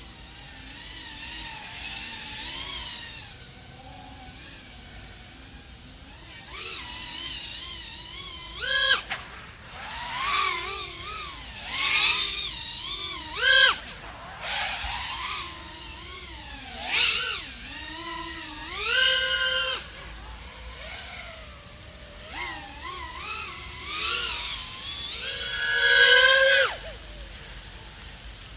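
iFlight AOS 3.5 V5 FPV quadcopter's XING 1504 3100KV brushless motors and three-blade props whining, the pitch rising and falling with the throttle. Several sharp throttle punches give short loud surges, the strongest near the end.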